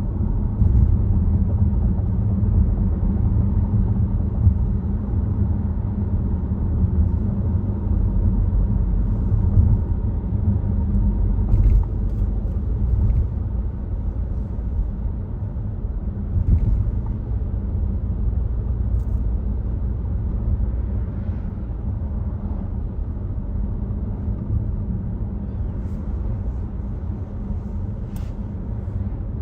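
Volvo XC60 being driven: a steady low rumble of road, tyre and engine noise.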